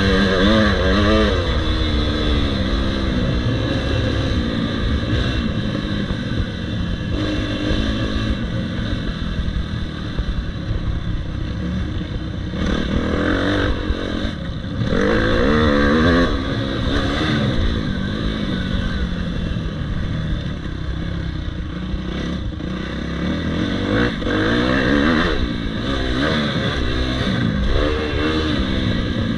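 Motocross bike engine running under the rider, revving up and easing off again and again as it is ridden along a dirt track, with several strong surges of throttle.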